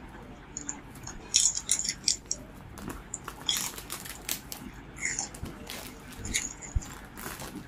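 Irregular rustling and small hard clicks of a smartphone's retail box and packaging being handled and opened.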